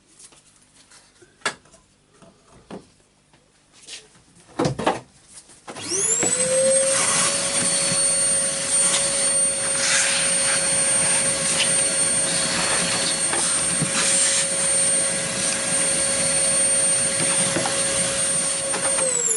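A few light taps and knocks of handling parts. About six seconds in, an electric vacuum cleaner starts up: its motor spins up to a steady hum with a high whine and a loud rush of air, used here to clear dust out of the sander housing. It is switched off near the end and winds down in falling pitch.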